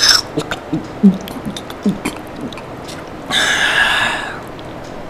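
An owl hooting several times in short, low calls, with a few light clicks. About three seconds in comes a long, breathy gasp.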